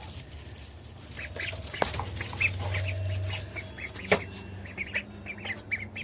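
Ducks calling in quick, short, high notes, several a second, with a couple of sharp knocks among them.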